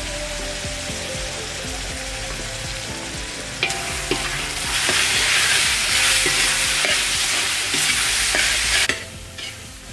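Meat and chili paste sizzling in a metal wok as they are stirred, with a few sharp clinks of the spatula against the pan. The sizzle grows louder about halfway through and drops away suddenly near the end.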